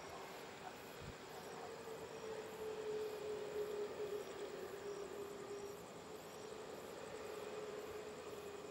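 Airbus A321neo jet engines idling as the airliner taxis on the runway: a steady hum that wavers slightly in pitch.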